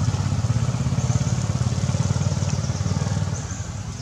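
A motorcycle engine running with a low, rapid pulsing, growing quieter a little after three seconds in.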